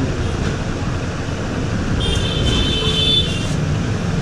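Steady rumble of passing road traffic, with a high-pitched tone sounding for about a second and a half in the middle.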